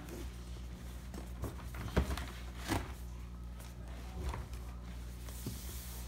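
Cardboard box being handled and turned over: a few light knocks and taps of hands on the box, with a brief scrape near the end as it is slid into place, over a low steady hum.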